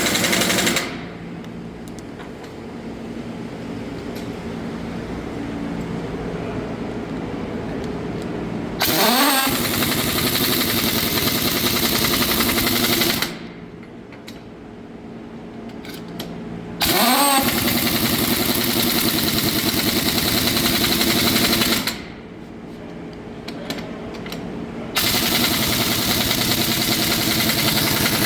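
Engine running, cutting abruptly between louder and quieter stretches, with a short rising whine twice, like a rev.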